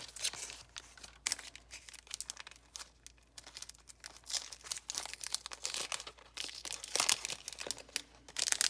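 Packaging crinkling and rustling as craft supplies are unwrapped and handled, in irregular crackles with a few louder handfuls, the loudest about seven seconds in and near the end.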